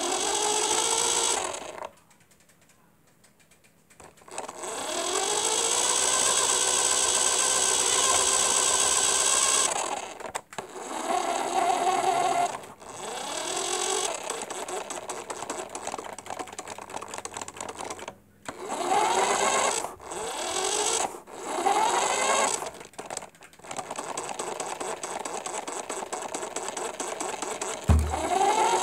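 Small electric motor and propeller of a radio-control Mustang model running in spurts: the whine climbs in pitch each time the throttle is opened and cuts out abruptly several times, once for about two seconds. A low thump comes near the end.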